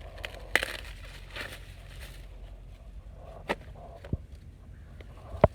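Corn plants rustling as they are handled during picking, with four sharp snaps or cracks, the loudest near the end.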